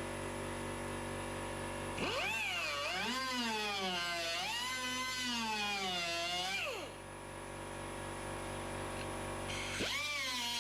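A handheld electric power tool spinning up, its motor pitch wavering up and down as it works the metal for about five seconds, then winding down. A second, shorter run comes near the end, over a steady background hum.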